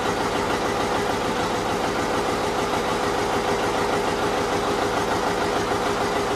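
John Deere 720 two-cylinder diesel tractor engine running steadily.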